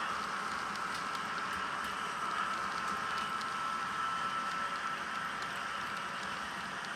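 S scale model freight train's cars rolling along the track: a steady rolling hiss of metal wheels on rail with light, irregular clicks, over a steady high-pitched whine.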